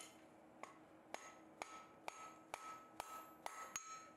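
Faint, regular blows of a hand hammer on the hot end of a steel bar lying on an anvil, about two to three a second, each leaving a brief high ring. The bar's end is being upset to prepare it for a forge weld.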